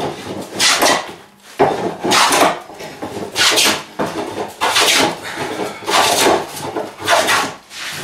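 A No. 4 steel smoothing plane taking repeated cutting strokes along a knotty wooden plank, about six passes, each a short scraping swish of a shaving lifting off the wood.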